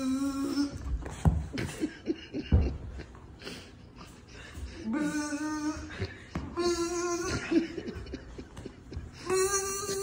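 A person making buzzing sounds with her voice, a few short held buzzes a couple of seconds apart, to excite a pit bull puppy. A couple of dull thumps come in between as the puppy plays.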